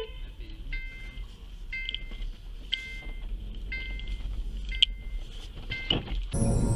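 A high electronic warning beep repeating about once a second, six times, over a low traffic rumble. Background music starts suddenly near the end.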